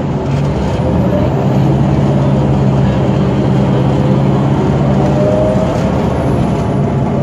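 Detroit Diesel Series 50 four-cylinder diesel of a New Flyer D40LF transit bus, heard from inside the cabin, droning steadily as the bus pulls away and gets under way; it swells just after the start, and a faint whine rises about four to five seconds in.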